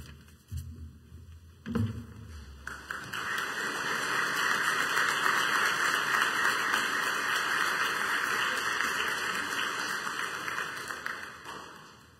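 Congregation applauding, building up about three seconds in and dying away near the end, after a couple of low thumps at the lectern microphone.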